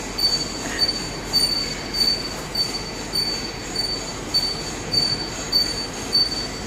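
Heavy-duty lathe turning a large metal workpiece under the cutting tool, with a steady high-pitched squeal that swells about every 0.6 seconds over the running machine's noise.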